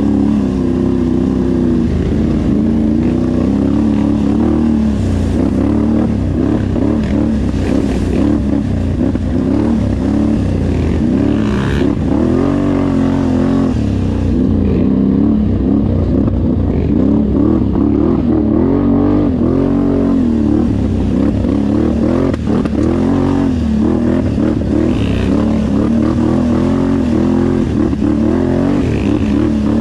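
Off-road vehicle engine running under constantly changing throttle, its pitch rising and falling every second or two, with a few brief knocks.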